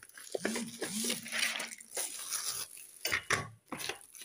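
Hands handling a clear plastic clamshell case and taking out a small digital pocket scale: plastic rustling and creaking with a few light clicks and knocks.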